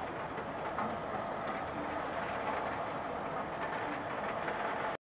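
Steady rain falling, a continuous even hiss with faint scattered drop ticks; it cuts off suddenly at the very end.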